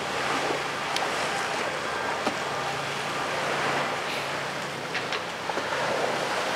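Choppy harbour water washing and wind, with the low steady hum of a passing Wightlink car ferry's engines under it and a few short clicks.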